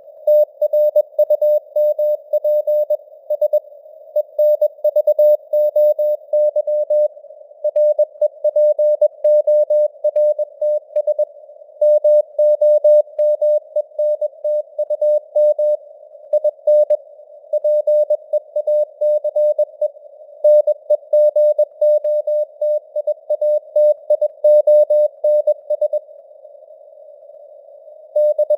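Morse code (CW) at 21 words per minute: a single mid-pitched tone keyed on and off in fast dots and dashes over a narrow band of hiss that simulates radio noise, with the signal strength fading up and down. The keying pauses for about two seconds near the end, leaving only the hiss.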